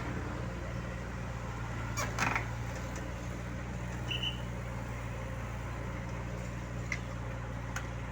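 Heavy-equipment engine idling steadily. A few sharp clicks and knocks come about two seconds in and near the end, with a short high chirp in the middle.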